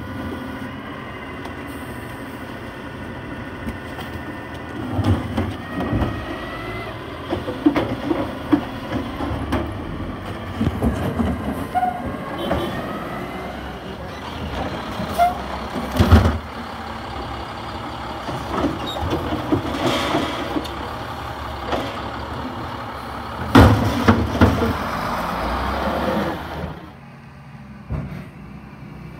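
Automated side-loading garbage truck working: the diesel engine runs steadily under a whine from the hydraulic lifting arm, with sharp knocks as carts are gripped, lifted and shaken out over the hopper. Near the end the sound drops to a quieter, steady background.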